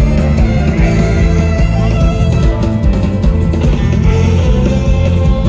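Rock band playing live and loud through a large PA, with electric guitars over a driving drum kit and bass, recorded from the crowd.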